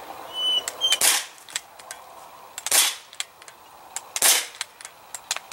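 Crosman C11 CO2 BB pistol firing three sharp pops about a second and a half apart, with lighter ticks between them from BBs striking the aluminium pop cans.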